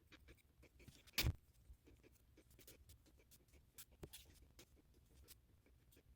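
Faint, scattered small scrapes and light taps of handling work, with one sharper knock about a second in.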